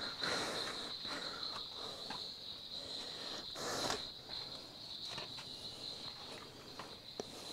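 Steady high-pitched trilling of crickets, with a scatter of soft footsteps and scuffs on rock.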